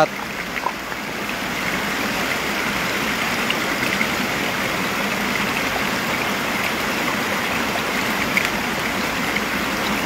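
Shallow stream running over rocks close by, a steady rush of water that grows a little louder after the first second.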